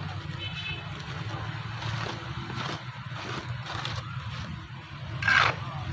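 A trowel and flat scraper working dry cement over a mould tray in a run of short scraping strokes, with one louder scrape about five seconds in. A steady low hum runs underneath.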